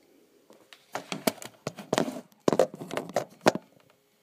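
About eight irregular strikes on a drum kit, each with a short ring, stopping about three and a half seconds in.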